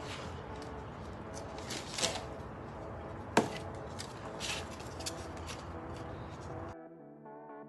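Tabletop craft handling: clicks and taps from the glue brush and its jar, and torn handmade paper crackling as it is picked up and glued, with one sharp tap about three and a half seconds in. Soft background music comes in near the end.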